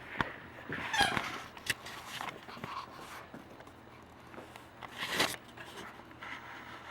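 Puppies scuffling and playing over toys: scattered knocks and rustles, a short sliding cry about a second in, and a louder scuffle about five seconds in.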